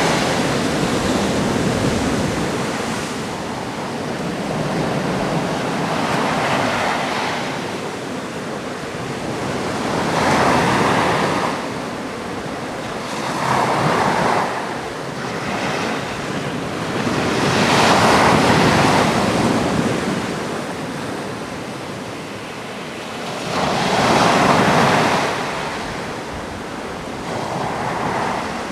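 Atlantic sea waves breaking and washing on a rocky shore, swelling into a louder crash every four to six seconds over a steady surf roar, with some wind on the microphone.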